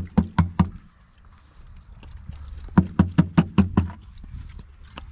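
Rapid hollow knocks, about six a second, in two short runs: one at the start and another about three seconds in.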